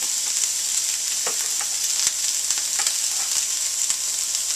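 Cubes of venison frying in oil in a skillet: a steady high sizzle with scattered crackling pops.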